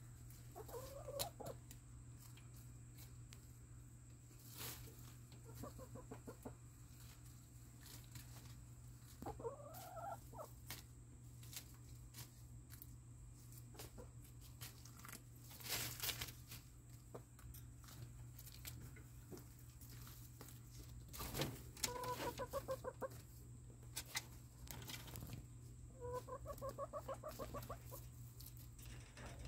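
Buff Orpington and ISA Brown hens clucking while feeding on leafy greens: about five separate soft calls spread out, some rising in pitch, with runs of quick repeated notes near the end, and a few sharp ticks between them.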